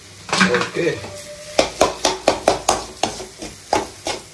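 A spoon stirring ground coconut masala into a sizzling kurma base in a pan. From about a second and a half in, it knocks and scrapes against the pan in a quick run of roughly five strokes a second over the sizzle.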